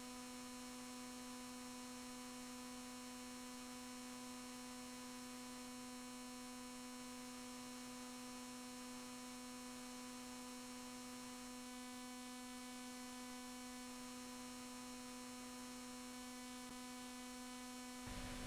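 Faint, steady electrical hum: a constant low tone with a few fainter higher tones over a light hiss, unchanging throughout.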